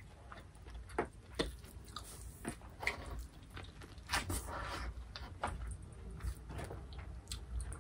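Close-miked chewing and mouth smacks of a person eating seafood, with irregular soft wet clicks.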